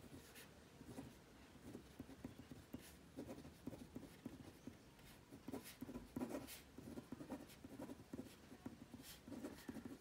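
Pen writing on a sheet of paper, scratching faintly in many short, irregular strokes as words are written out by hand.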